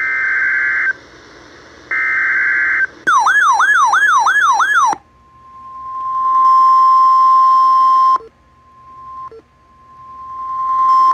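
Emergency Alert System signals from a NOAA Weather Radio flash flood warning. First come the last two one-second SAME data bursts, a harsh buzzing screech. Then follow about two seconds of a fast warbling electronic sweep, about five sweeps in two seconds, and then the steady 1050 Hz NOAA Weather Radio warning alarm tone, which swells in, cuts off about eight seconds in and comes back after a short break.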